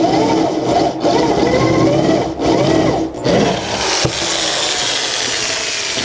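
Electric drill with a step drill bit cutting into thick steel plate at slow speed under heavy pressure. The motor runs steadily under a whine that wavers in pitch, with a few brief pauses.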